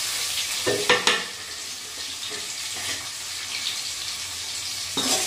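Chopped tomato, onion and green chilli sizzling in hot oil in a steel kadai over a gas flame, a steady frying hiss. A couple of sharp knocks about a second in and one more near the end.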